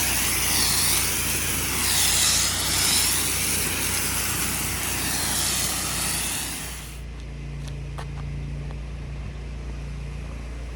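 High-pressure water spray from a pressure washer wand hissing loudly and swelling as it sweeps over a surface, then shutting off about seven seconds in. After that, a steady low hum of the running machine remains, with a few faint clicks.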